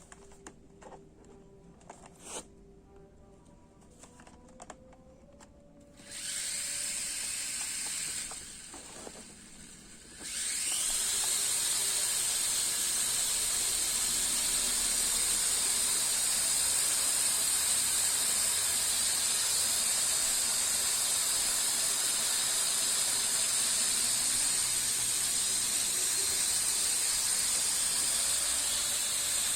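JJRC H33 mini quadcopter's four small motors and propellers running with a high, steady whine. It starts about six seconds in, drops briefly, then spins up again at about ten seconds and runs steadily. A few faint clicks come before it.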